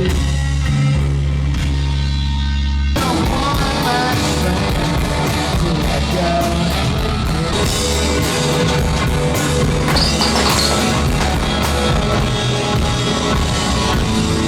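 Live rock band playing with singing. Sustained low notes at first, then about three seconds in the full band comes in with drums and cymbals.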